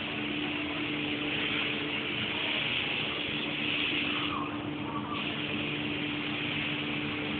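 Compressed-air paint spray gun hissing steadily, cutting out briefly about four and a half seconds in, as the trigger is let go, and then resuming. A steady motor hum runs underneath.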